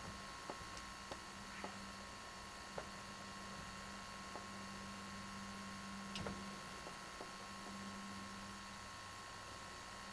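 Steady low hum and hiss of a camcorder's own running noise, with a handful of faint clicks from handling the camera, the clearest about six seconds in.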